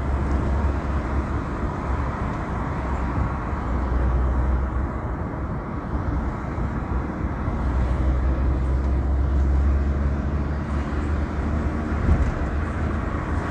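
Car engine and tyre road noise heard from inside the cabin while driving on a highway: a steady low rumble, with a brief thump near the end.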